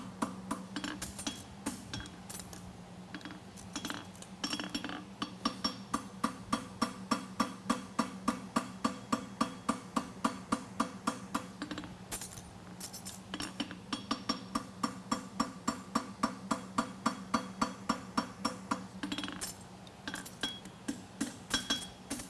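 Forging hammer striking a steel horseshoe bar on the anvil in quick, regular blows, about three a second, with the anvil ringing under them. The shoe is being shaped around the horn from the quarter back. The blows stop for about a second near the middle, then resume, growing less regular near the end.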